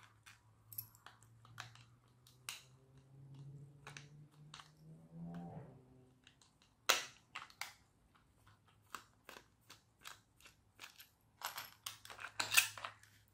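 Scattered small plastic clicks and taps as a toy RC car is taken apart and its plastic body shell is worked loose from the chassis. A cluster of louder clicks near the end comes as the shell comes free.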